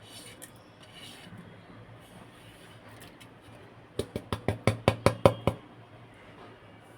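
A quick run of about a dozen light taps of a utensil against a steel pot, about eight a second and louder toward the end, as spices and herbs are tipped into the water. A faint rustle comes first.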